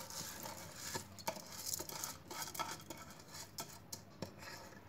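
Washed rice being pushed by hand out of a bowl into a pressure cooker of half-boiled dal: a faint, irregular patter of small clicks as wet grains drop in, thinning out near the end.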